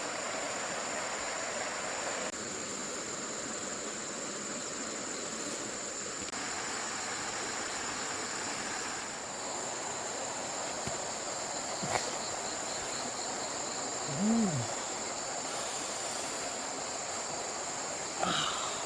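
Outdoor ambience with a steady high-pitched insect drone over an even hiss. A single sharp click comes about two-thirds through, and a short rising-and-falling call follows soon after.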